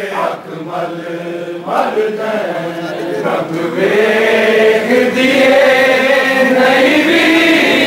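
Crowd of mourners chanting a Punjabi noha (lament) together, with several voices gliding in pitch. The chanting is softer at first and swells louder from about halfway through.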